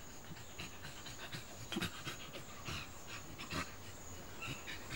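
Chimpanzees eating: soft mouth and breathing noises, with a few sharper clicks around two, three and three and a half seconds in.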